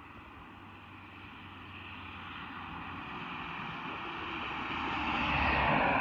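A large vehicle approaching and passing close by on a wet road: a tyre hiss that swells steadily and is loudest as the vehicle goes past near the end, with a low engine rumble at the peak.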